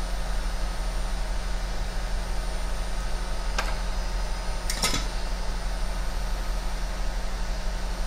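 Steady electric hum and fan-like hiss from soldering-bench equipment while solder work goes on under the microscope, with two faint clicks about three and a half and five seconds in.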